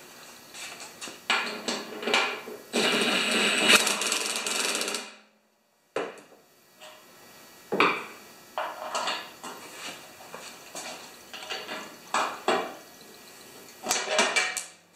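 Cordless drill running in bursts of a few seconds as it drives the bolts that fasten the brackets to a John Deere TRS 24 snowblower's auger housing. Short metal clinks and knocks of bolts and bracket come between the bursts.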